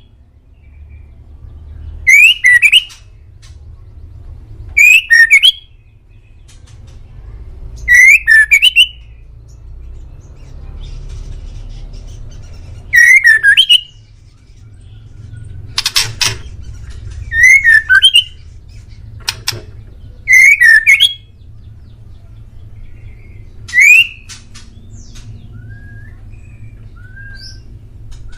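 A male white-rumped shama sings loud, short, rapidly warbling phrases, about nine of them, each a second or less, spaced a few seconds apart. A steady low rumble runs underneath, and a few faint short chirps come near the end.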